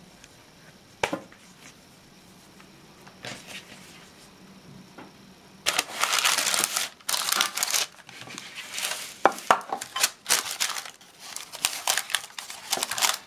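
Baking parchment crinkling and rustling as a sheet of rolled puff pastry is laid into a paper-lined baking dish and pressed into place, in irregular bursts from about six seconds in. A single sharp click about a second in.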